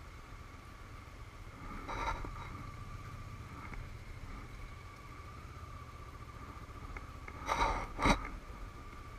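Motorcycle engine running low and steady at walking pace, with a faint steady whine above it. A brief scuff about two seconds in and two sharp knocks near the end, close to the helmet-mounted microphone as the rider turns his head.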